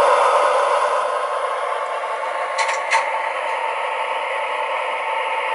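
Diesel shunter engine sound from a model locomotive's DCC sound decoder, running steadily through the model's small speaker, thin and without bass. Two short metallic clicks come just under three seconds in.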